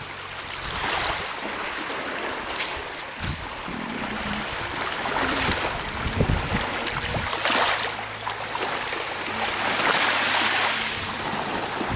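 Sea waves breaking and washing on the shore, the noise swelling several times a few seconds apart. Gusts of wind buffet the microphone with a low rumble around the middle.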